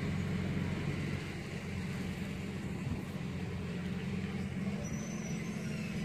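A steady low mechanical hum over a constant hiss, without pauses or changes.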